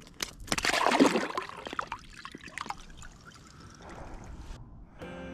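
Water splashing and trickling at an ice-fishing hole, loudest about a second in, then a fainter trickle; music starts near the end.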